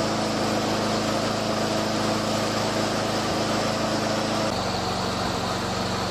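McCulloch Premium 6053CD lawn mower engine running steadily, its speed dropping slightly about four and a half seconds in.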